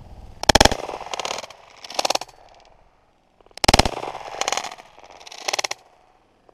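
Shotgun shots at flying doves. Two loud close reports about three seconds apart, each followed by two softer sharp reports over the next couple of seconds.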